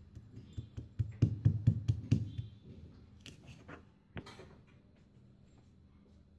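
Stone pestle pounding garlic cloves in a stone mortar: a quick run of dull knocks, then a few single strikes.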